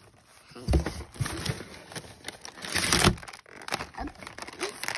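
Girl Scout cookie packaging being handled: a plastic cookie wrapper crinkling and cardboard boxes rustling and knocking in irregular bursts, loudest about three seconds in.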